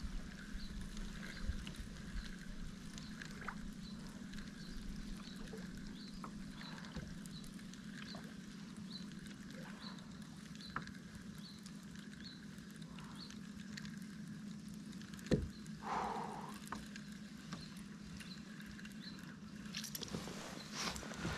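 Fishing reel being wound on a kayak to retrieve a crankbait: a faint tick about once a second over a low steady hum. There is one sharp knock about fifteen seconds in.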